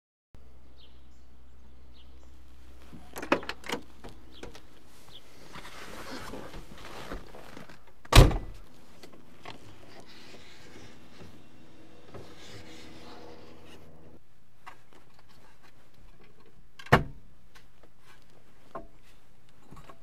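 Door and power-window sounds of a 1967 Cadillac Eldorado. A few clicks come about three seconds in, then a power window motor runs with the glass sliding. A heavy door thunk comes about eight seconds in and another near seventeen seconds.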